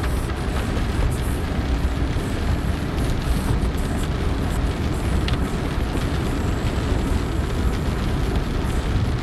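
Steady in-car driving noise in heavy rain: a low road rumble with the hiss of tyres on the flooded road and rain on the car, heard from inside the cabin.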